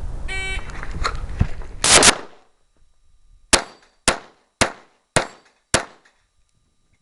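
An electronic shot timer's short start beep, then a 9mm Glock 34 pistol firing: a quick pair of shots about two seconds in, then five evenly spaced shots about half a second apart.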